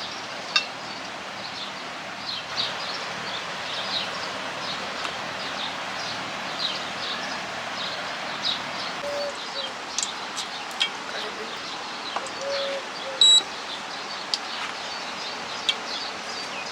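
Small birds chirping repeatedly in short high notes over a steady background hiss, with a brief whistle-like call near the end.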